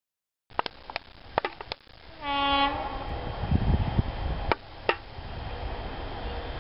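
Class 73 electro-diesel locomotive E6047 gives one short horn blast about two seconds in, a warning as it approaches a level crossing. After the blast comes a steady low rumble of the train running on diesel power, with a few sharp clicks before and after.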